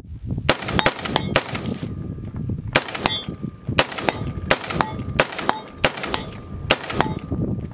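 A rapid string of rifle shots, about sixteen: four quick ones, a pause of more than a second, then about three a second. Bullets hitting a hanging steel gong target set it ringing with a steady tone under the shots.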